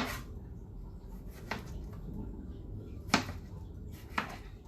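Knife cutting tomatoes on a cutting board: four sharp knocks of the blade meeting the board, spaced about a second apart, the third the loudest.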